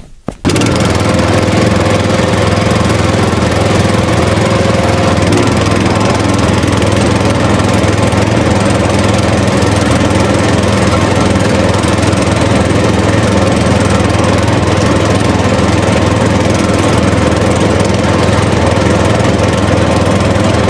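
Small engine running steadily at a constant speed, starting abruptly about half a second in.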